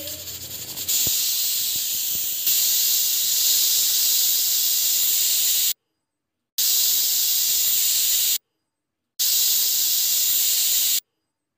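Prestige pressure cooker hissing steam steadily, growing louder over the first couple of seconds. The hiss is broken by two short silences and stops near the end.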